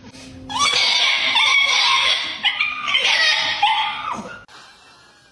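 A dog's loud, rough, drawn-out cry, starting about half a second in and fading out after about four seconds.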